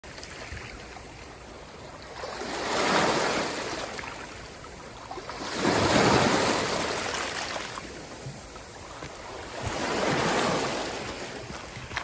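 Small sea waves breaking and washing over a rocky, pebbly shore. The surf surges three times, about three to four seconds apart, each surge swelling and then fading back.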